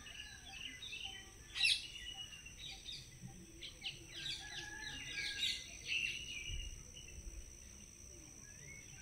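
Several birds chirping and calling in quick short notes and trills. The loudest is a sharp note about a second and a half in, and the calls are busiest from about four to six seconds in. A faint steady high-pitched tone runs underneath.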